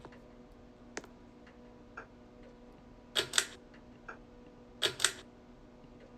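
Sharp clicks in pairs, three pairs about a second and a half apart, with a few fainter single ticks, over a steady low hum.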